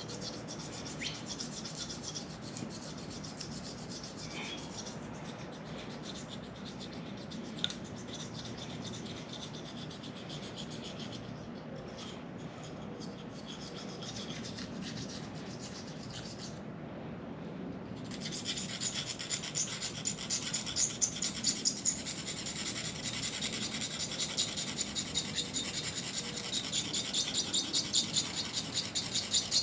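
Razor blade scraping rust off an engine block's deck surface, a quiet steady scrape; over the last third it turns into louder, rhythmic back-and-forth strokes.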